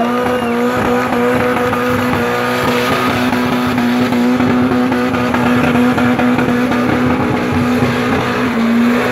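Car engine held at high, steady revs during a burnout, its rear tyres spinning on the pavement in clouds of smoke. The engine note stays at an almost constant pitch.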